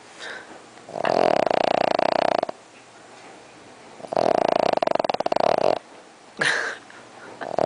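Sleeping dog snoring loudly in long, rattling snores about every three seconds, with a short snort between them near the end.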